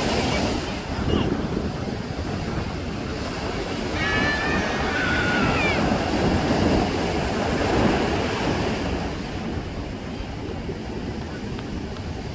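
Sea waves breaking and washing on the shore in a steady surging wash, swelling a few times. A few brief high-pitched calls come through about four to six seconds in.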